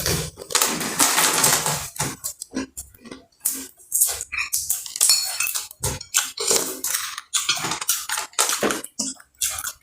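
A spoon clinking and scraping against a plate while eating, in a quick, irregular run of short clicks.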